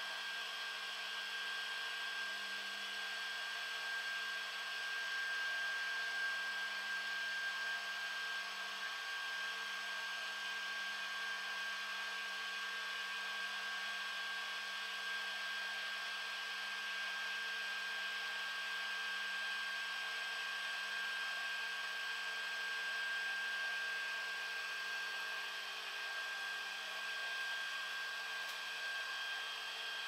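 Creality Ender 3 3D printer with a 32-bit V4.2.2 mainboard (not the silent board) running a print: the steady whir of its fans with a constant high-pitched tone over it, and its stepper motors driving the print head.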